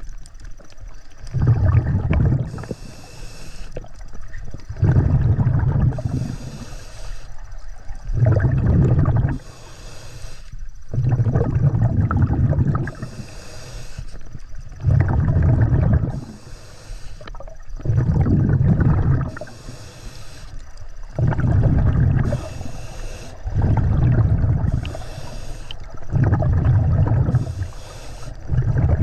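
A scuba diver breathing through a regulator underwater, roughly every three seconds: the hiss of each inhalation and a long, low rumble of exhaust bubbles.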